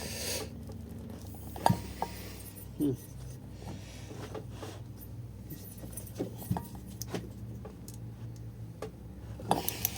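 Occasional metal clinks and taps of tools and engine parts being handled during engine assembly, a few single clicks spread out with a small cluster near the end, over a steady low hum.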